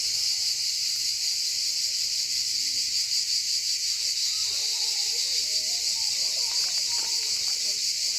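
Insect chorus: a steady, high-pitched, unbroken buzzing.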